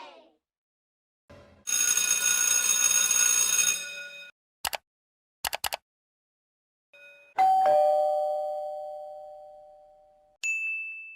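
A string of short sound effects: a steady buzzing tone for about two seconds, a few sharp clicks, then a two-note ding-dong doorbell chime, high note then low, ringing out over about three seconds, and a short high beep near the end.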